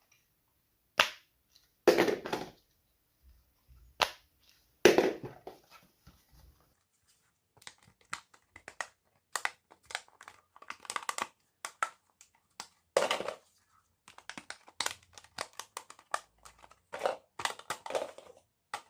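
Fidget toys being handled: four sharp pops in the first five seconds, then a quicker run of lighter plastic clicks and taps.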